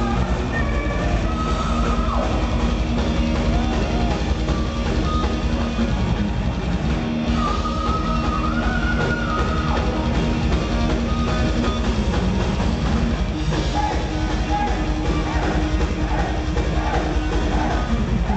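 Heavy metal band playing live, recorded from the crowd: distorted electric guitar, drum kit, keyboards and a singer, with long held high notes near the start and again about halfway through.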